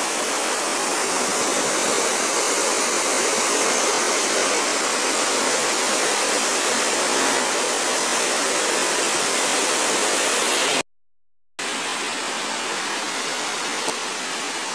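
Steady rushing of a muddy river in flash flood. It cuts out for under a second about eleven seconds in, then resumes a little quieter.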